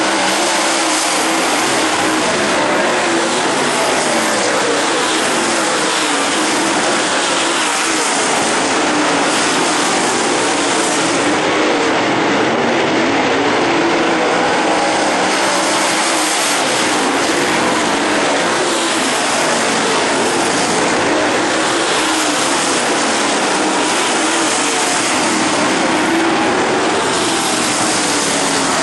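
A pack of dirt late model race cars running at racing speed, their V8 engines blending into one loud, steady drone that wavers slightly in pitch as the cars circle the track.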